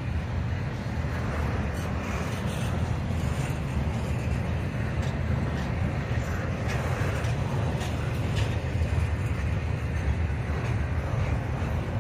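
Double-stack intermodal freight train rolling past: a steady low rumble of wheels on rail, with occasional faint clicks.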